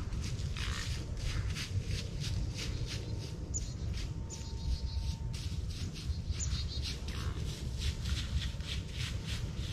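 A steady run of rustling, crunching strokes in dry leaves and grass, about three a second, over a low wind rumble on the microphone. A few short, high bird chirps sound in the middle.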